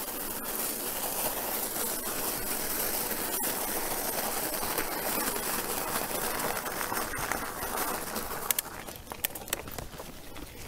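Wide 2.8-inch mountain-bike tyres crunching over loose coarse gravel, a steady noisy rush that fades about eight seconds in as the bike slows, followed by a few sharp clicks and ticks.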